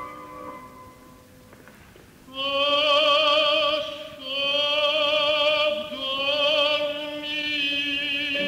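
Operatic tenor aria: after about two seconds of soft, sustained accompaniment, a male voice comes in singing long held notes with wide vibrato, breaking briefly between phrases.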